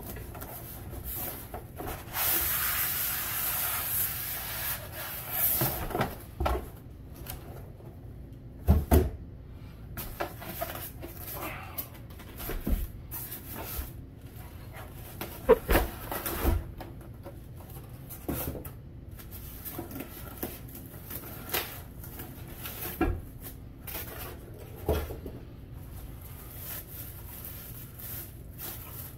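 Unpacking a boxed grill: a long scraping rustle for about three seconds, starting about two seconds in, as packing is slid out of the cardboard box, then scattered knocks and rustles as the styrofoam-packed, plastic-wrapped parts are set down on wooden boards and their plastic bags handled.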